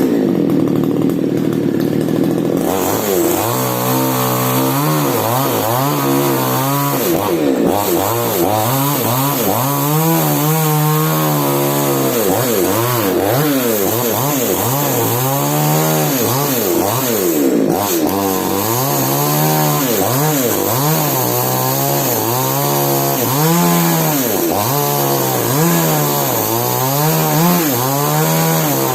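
Falcon mini chainsaw engine running hard while cutting mango wood, its pitch rising and dipping over and over, about once a second, as the chain bites and frees. It comes up from a lower, steadier note a couple of seconds in.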